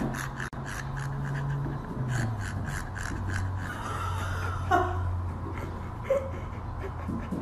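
Husky panting hard and fast, about four quick breaths a second. A short falling squeal near the middle.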